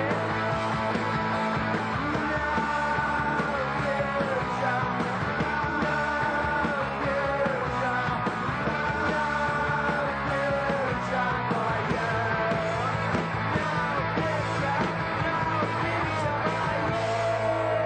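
Punk rock music: a loud, full band with distorted guitars and drums, with a voice singing or yelling over it.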